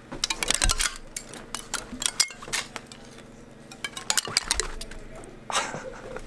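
Hanging icicles clinking and knocking against each other as they are brushed through: many sharp, glassy clinks, thickest in the first second and again around five and a half seconds in.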